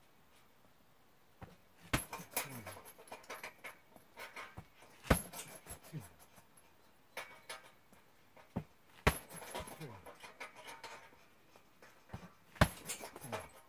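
Punches and kicks landing on a hanging heavy punching bag: several sharp blows a few seconds apart, each followed by rattling and creaking as the bag swings on its metal hanger.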